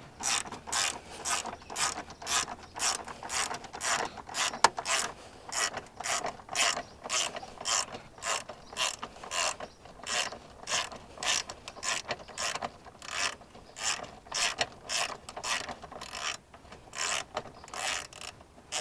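Socket ratchet with an extension backing out a 10 mm bolt: repeated short bursts of ratchet clicking, about two strokes a second.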